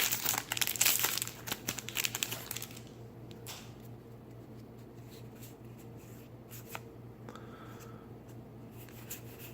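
Foil booster pack wrapper crinkling and tearing for about the first three seconds, then only a few faint clicks over a low steady hum.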